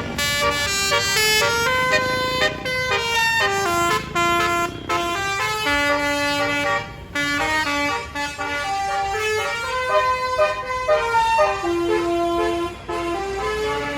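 Basuri multi-note bus air horn playing a tune: a quick run of short horn notes stepping up and down in pitch, with a few notes held longer around the middle and near the end.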